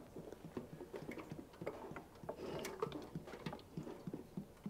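Motor oil glugging out of a plastic jug into a metal funnel: a faint, irregular run of gurgles and small pops as air bubbles back into the jug.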